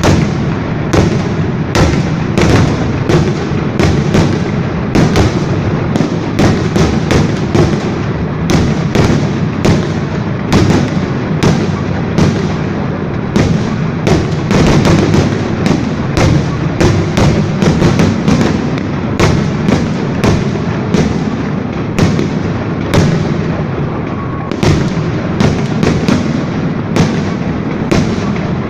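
Fireworks salute: a continuous barrage of sharp bangs, several a second, over a steady low rumble of echoing booms.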